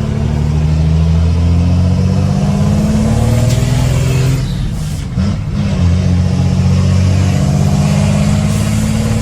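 Ford Cargo dump truck's diesel engine pulling under acceleration, with a deep rumble that drops briefly about five seconds in and then pulls again. Heard from inside the cab through a partly open window.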